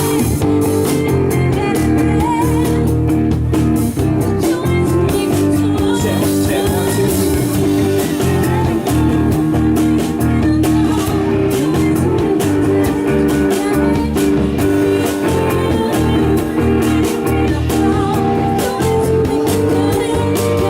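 Live band playing a blues-rock number led by guitar, with drums keeping a steady beat.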